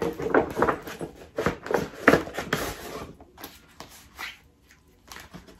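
A paper shopping bag and paper booklets rustling and crinkling as they are handled, with a busy run of crackles over the first three seconds that thins out to a few faint rustles near the end.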